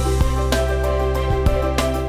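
Background music: sustained bass and chord tones with a few light percussive hits.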